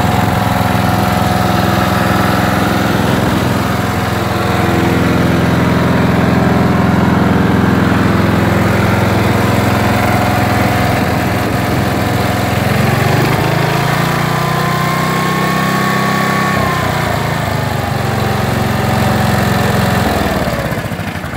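Briggs & Stratton engine of a Jacobsen Homelite RMX 8E rear-engine riding mower running steadily. Its speed rises for a few seconds past the middle and settles back, and the engine sound drops away near the end.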